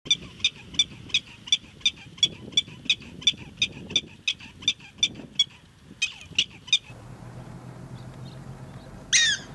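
Prairie dog alarm call: a rapid, even series of short, high-pitched chirps, about three a second, pausing briefly and then resuming with three more. Near the end comes one louder, longer call.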